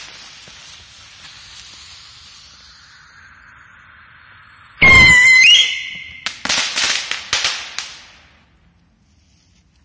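Firework rocket's lit fuse hissing, then about five seconds in the rocket launches with a loud rushing blast and a high whistle that rises at its end. A rapid string of crackling pops follows and dies away over about two seconds.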